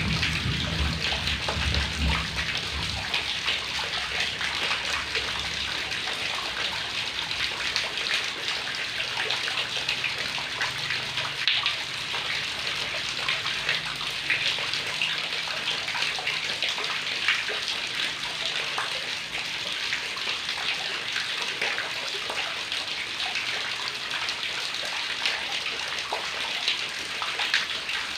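Heavy rain falling steadily, a dense patter of drops over an even hiss.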